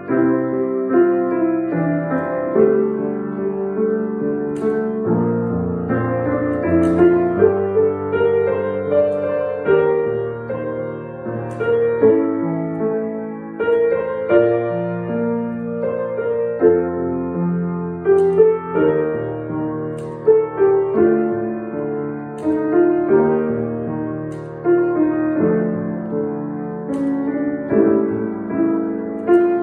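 A piano played solo: a steady flow of notes and held chords, with new notes struck every fraction of a second.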